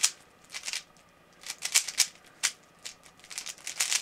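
Rubik's cube being scrambled by hand: quick runs of plastic clicking as its layers are turned, in irregular bursts with a short pause about a second in.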